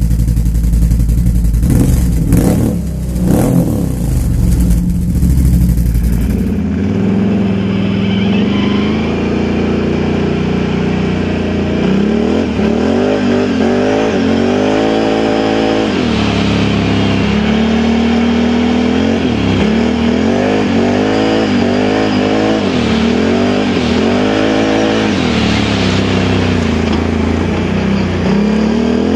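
Can-Am Outlander 1000 XMR ATV's V-twin engine running through a dual slip-on exhaust, with the revs climbing and dropping again and again under throttle. The first several seconds are a heavy low rumble with a few knocks.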